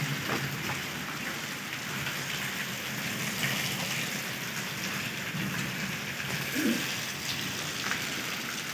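Steady rain falling, with scattered louder drips landing close by and a brief low sound about two-thirds of the way through.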